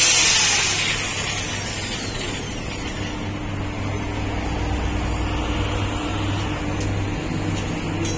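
A handheld power tool whirring loudly with a hissing rush that fades over the first second, its whine falling in pitch as it winds down. A steady low mechanical hum carries on underneath.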